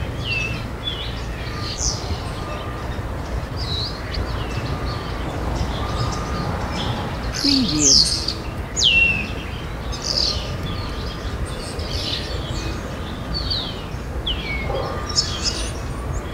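Birds chirping and calling: many short chirps and quick downward-sliding whistles from several birds at once, over a steady low background rumble. A few louder calls come about halfway through.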